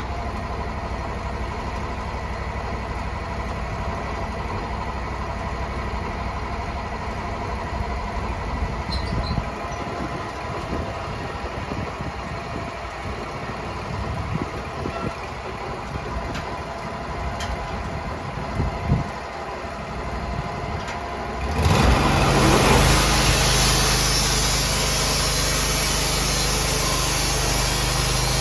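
Sawmill engine running steadily at low speed with a few small knocks, then about three-quarters of the way in it suddenly gets louder and runs faster under load, staying up.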